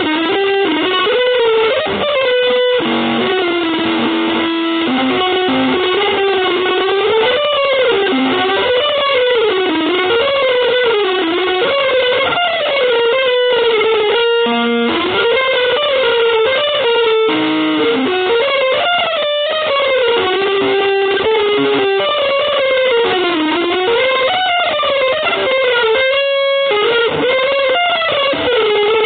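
Electric guitar playing a continuous single-note melody that glides and bends in pitch, with long sustained notes.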